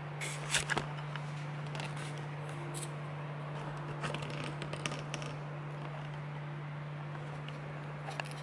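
Handling noise from a handheld camera being moved around: scattered rustles and light clicks, busiest around half a second in and again at about four to five seconds, over a steady low hum.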